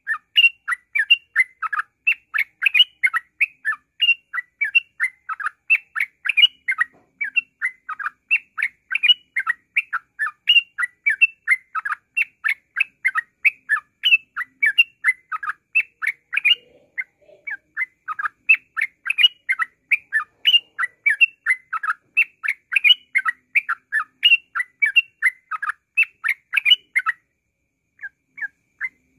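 A trucukan (yellow-vented bulbul) singing 'ngropel': a rapid, unbroken run of short chirping notes, about four a second, that pauses briefly near the end.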